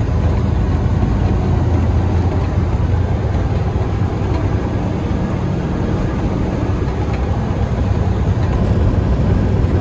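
Semi truck's engine and road noise heard from inside the cab while driving, a steady low rumble.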